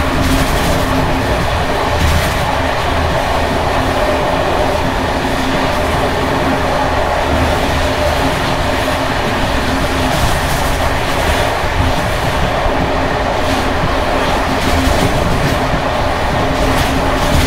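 Loud, rattling ride in a 1979-built ČD Bd264 passenger coach on worn Görlitz V bogies, heard through an open window: a steady rumble of wheels on rough jointed track, with scattered clicks at the rail joints. The bogies have run many kilometres since their last major maintenance, and the brake rigging bouncing on the uneven track makes the ride very noisy.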